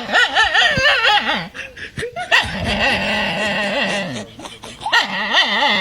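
Loud laughter, wavering up and down, with a steadier drawn-out stretch in the middle.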